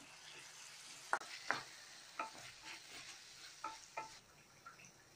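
Chopped tomatoes and onions frying in a stainless-steel kadai, sizzling as a spoon stirs them, with several sharp knocks and scrapes of the spoon against the ringing steel pan. The sizzle dies down a little near the end.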